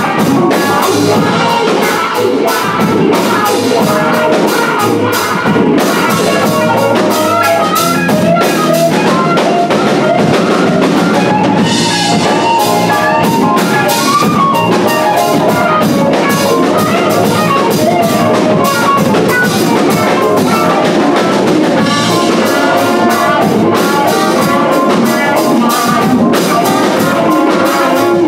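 Live jazz big band playing a funk number: drum kit keeping a steady beat under electric guitar and a brass section of trumpets and trombones.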